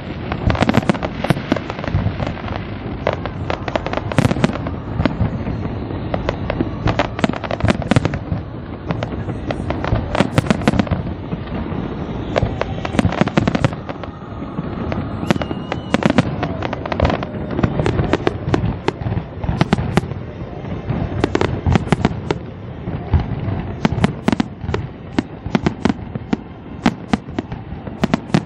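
Aerial fireworks display: a dense, continuous barrage of sharp bangs and crackles over a steady low rumble of shell bursts.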